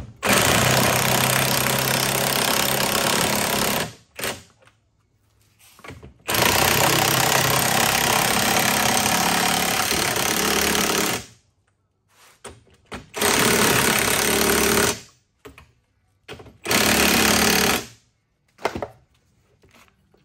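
Cordless impact wrench hammering as it drives the screws of clamp-type MacPherson strut spring compressors, compressing the coil spring so the strut can be taken apart. It makes four runs: the first about four seconds long, the second about five, then two shorter bursts, with light metal knocks between them.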